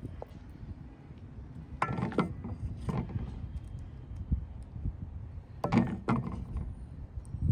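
A metal utensil scraping and knocking against a cooking pot in a few separate strokes, two pairs about three seconds apart, over a steady low rumble.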